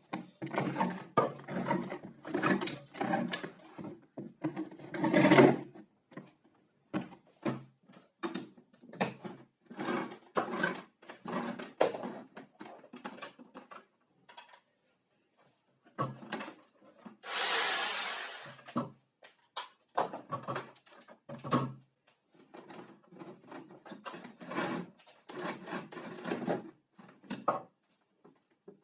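Irregular knocks, taps and rubbing of hard parts being handled and set down on a wooden surface, with one hissing rush lasting about a second and a half just past the middle.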